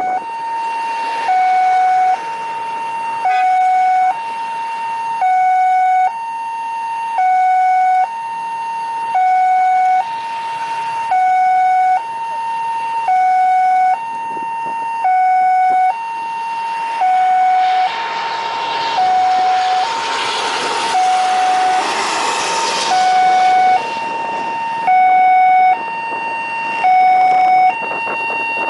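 Two-tone hi-lo siren alternating steadily between a higher and a lower note, switching about once a second. A broad rushing noise swells up and fades away between about 18 and 24 seconds in.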